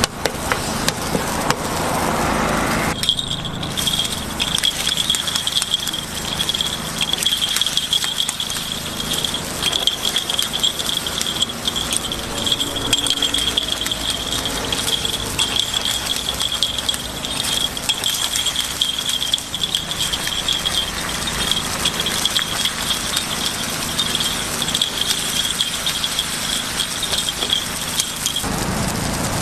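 Rapid clicking and rattling of metal picks against a cast-iron takoyaki pan as the balls are turned, over a hiss. A steady high-pitched tone runs under the clicks, starting about three seconds in and cutting off near the end.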